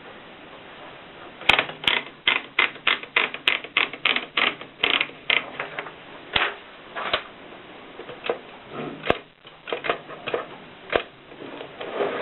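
AEG Mignon 3 index typewriter clicking as it types: a quick run of sharp strikes, about three a second, then slower, irregular clicks.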